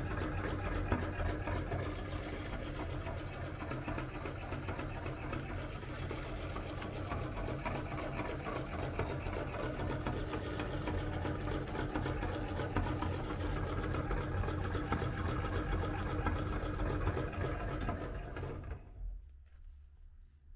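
Motor-driven meat grinder running steadily, its auger crushing Orbeez water beads through the cutting plate. The running stops suddenly about two seconds before the end.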